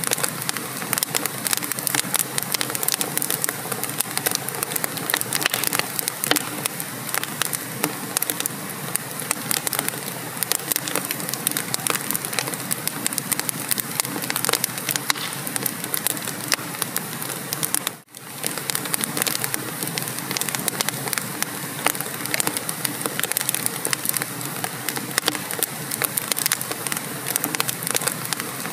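Wood fire crackling and popping in a fireplace: a dense run of sharp crackles over a steady hiss, broken by a brief gap about eighteen seconds in.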